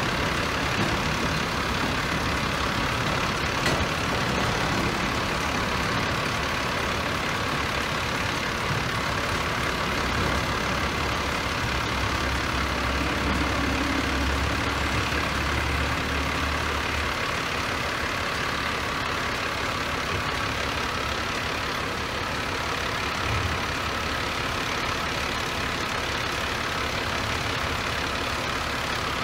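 Empty autorack freight cars rolling slowly through a level crossing, a steady rumble and rattle of wheels and car bodies. A low engine hum joins for several seconds in the middle.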